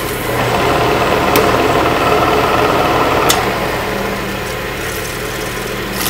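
A 1943 Sidney lathe's three-phase drive motor running with a steady hum, as the friction clutch is pulled in and spins up the drive and gear train, adding a louder mechanical running noise for the first few seconds, then easing as the clutch lets go and the drive coasts to a stop. Two sharp clicks come about a second and a half and about three seconds in.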